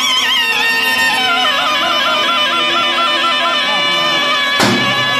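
Zurna playing a folk melody in short, heavily trilled phrases that step downward, over a steady held tone. A single sharp knock sounds near the end.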